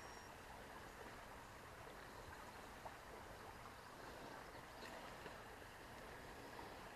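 Near silence: faint, steady outdoor background hiss.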